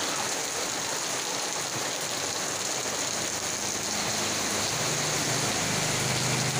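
Heavy cyclone rain pouring down steadily. A low engine hum comes in about two-thirds of the way through.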